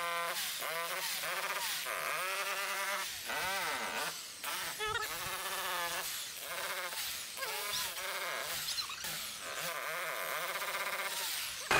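A trapped cat meowing over and over, about once a second, each cry rising and falling in pitch.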